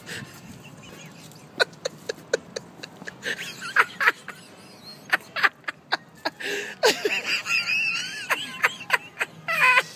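People laughing in short bursts of giggles and snickers. The laughter grows denser and louder after a few seconds, rising into a longer high-pitched laugh in the second half.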